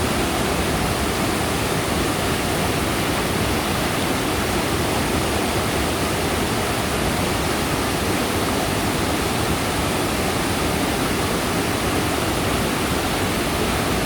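Mountain stream water rushing over rocks in a steady, even rush.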